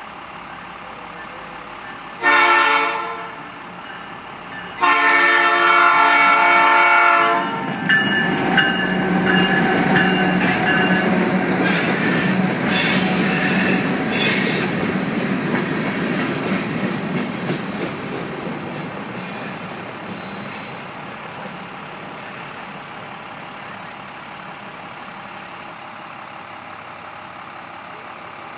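Diesel freight locomotive's horn: a short blast, then a long one a couple of seconds later. Then the locomotive and freight cars roll past over the crossing with wheels squealing and rail clatter, fading away over the last ten seconds or so.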